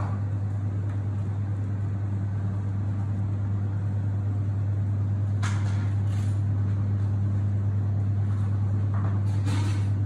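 Steady low hum of commercial kitchen equipment, with two brief faint handling noises about five and a half and nine and a half seconds in.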